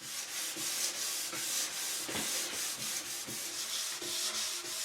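500-grit sandpaper rubbing over a cured finish on a wooden countertop in quick, repeated strokes. It is a light scuff-sanding between coats of finish.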